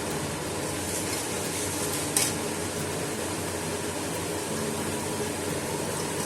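Chopped onion sizzling in hot cooking oil in a frying pan as it is stirred, with one sharp clack of the utensil against the pan about two seconds in.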